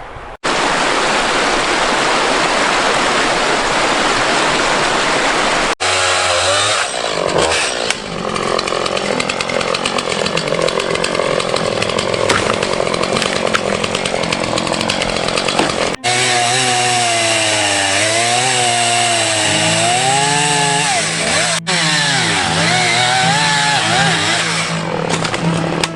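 Two-stroke chainsaw running and cutting through downed trees, heard in several short clips joined by abrupt cuts. Its engine pitch rises and falls repeatedly as the saw revs and labours in the wood.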